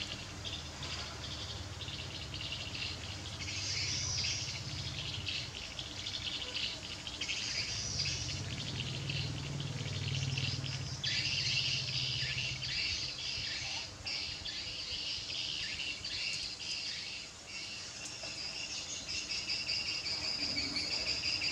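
Insects chirring steadily in a high, pulsing band, with bird chirps mixed in. A low hum runs under it through the first half and then fades.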